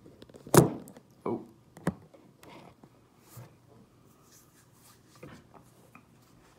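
Several knocks and thumps, the loudest about half a second in, followed by fainter scattered taps and handling noises.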